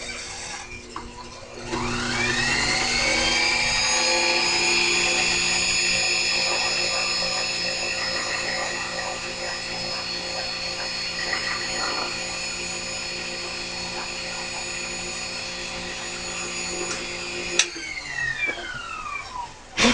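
Small milling machine's motor switched on and winding up to speed about two seconds in, then running steadily while the cutter mills flats in a small metal part. Near the end it is switched off with a click and winds down.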